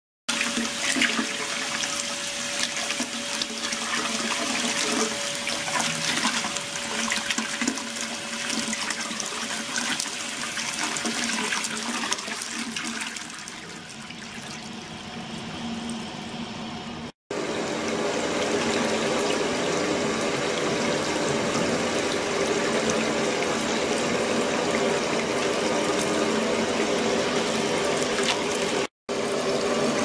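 Water churning in an ultrasonic cleaning tank run with a degassed-microbubble liquid circulation system, with a steady hum underneath. The sound drops out briefly twice, past the middle and near the end.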